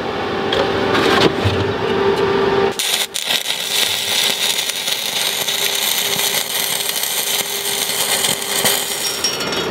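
Electric arc welding a steel anode bolt onto a steel boat hull's keel. After a few seconds of steady hum, the arc strikes about three seconds in and crackles and hisses steadily from then on.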